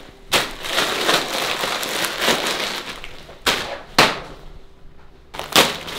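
A crinkling plastic bag of Cheetos being tipped out, the crunchy snacks pouring into a pot in crackly bursts, with several sharp knocks along the way.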